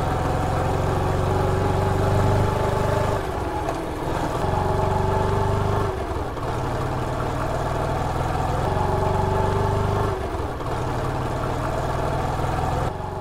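Small commuter motorcycle's engine running as the bike pulls away. The engine note drops back briefly every three to four seconds, as at gear changes.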